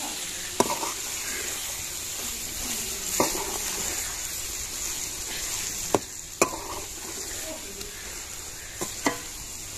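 Fish masala frying in a metal karahi, sizzling steadily as a steel ladle stirs it, with a few sharp clicks of the ladle striking the pan.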